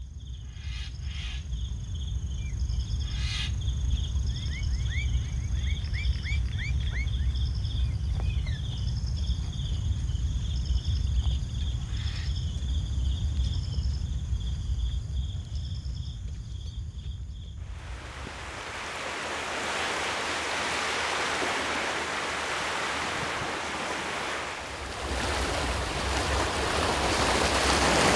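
A low steady rumble with high chirping calls repeating over it and a quick run of rising chirps, then, about eighteen seconds in, the wash of small waves breaking on a beach, swelling near the end.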